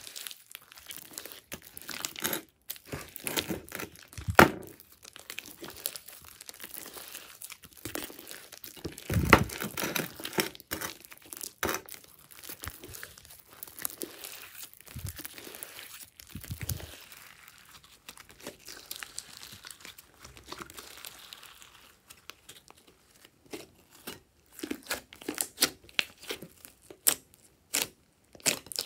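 Hands stretching, folding and squeezing a large mass of glossy glitter slime: sticky crackling with many small irregular pops. It goes quieter for a few seconds past the middle, and the pops come thick again near the end.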